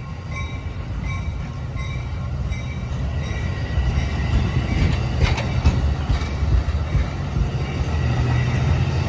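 Amtrak San Joaquin passenger train rolling through the station, its low rumble building steadily. A bell rings in quick, evenly spaced strokes that fade out in the first second or two. A short high squeal comes about six seconds in.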